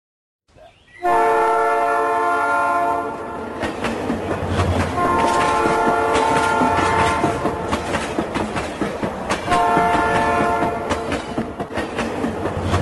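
A train sounds three long blasts of its horn or whistle, a chord of several notes, over the steady rumble and clickety-clack of wheels running over rail joints. The first blast starts about a second in and is the loudest.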